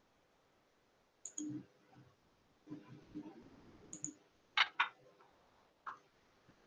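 Computer mouse clicks: a few separate clicks, with a quick, louder pair about four and a half seconds in, as browser tabs are switched and a page is scrolled.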